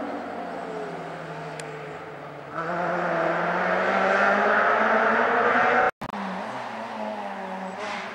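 Rally car engines running at high revs as cars pass on a special stage: one fades as it moves away, then a louder engine comes in abruptly about two and a half seconds in. The sound drops out for a moment near six seconds, and another engine follows, a little quieter.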